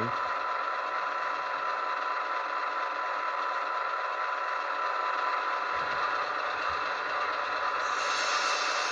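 HO scale EMD SD7 model's sound decoder playing the diesel engine sound through its small speaker, a steady running hum. Near the end an air hiss comes in as the independent brake is worked.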